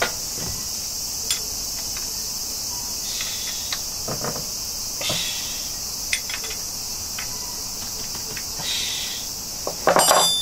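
A steady high-pitched insect chorus, with scattered light clicks and knocks and a cluster of louder knocks near the end.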